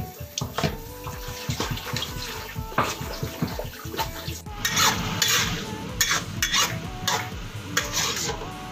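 Lettuce leaves being washed in a plastic basin under a running tap, with splashing and knocks against the basin and the stainless steel sink. About halfway through this gives way to peanuts being stirred in hot oil in a wok: a hiss with the metal spatula scraping and clattering against the pan.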